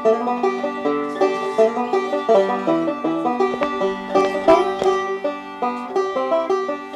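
Background music: a brisk tune of quick plucked-string notes.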